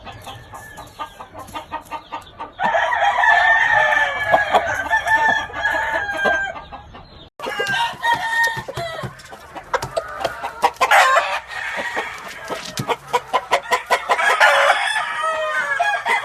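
Roosters crowing, with short clucks between the crows: one long crow about three seconds in and another near the end.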